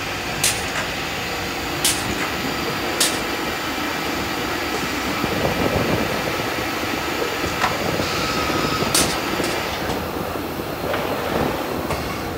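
Six-sided CNC panel drilling machine with twin drilling heads at work on a melamine panel: a steady whir of spindles and feed, broken by several sharp clicks as the drilling units work, with a busier stretch of drilling noise near the middle.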